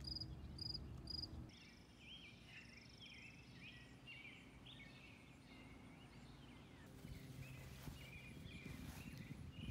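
Faint outdoor ambience: a cricket chirping evenly, about three chirps a second, for the first second and a half. After a cut, small birds chirp and twitter, with a steady high insect buzz for the next couple of seconds.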